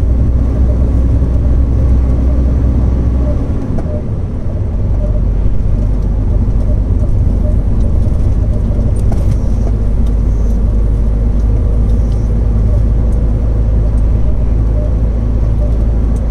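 Truck engine running steadily under road noise while driving; the engine note drops and changes about four seconds in.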